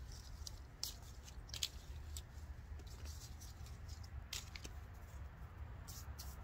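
A person chewing crisp Asian pear, with a few sharp, separate crunches over a faint low hum.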